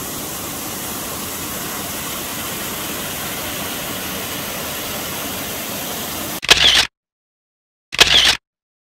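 Steady rushing of a waterfall, then two sharp camera-shutter clicks about a second and a half apart near the end, with dead silence around them.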